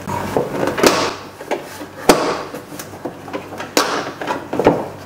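Plastic tail light housing of a 2004 Chrysler Pacifica being shaken and wiggled loose from the body, rattling and scraping with four sharp knocks.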